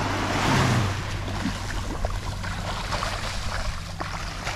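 Small waves washing up the sand in the shallows, with wind buffeting the microphone, and a hooked shark splashing in the shallow wash. The wash swells within the first second.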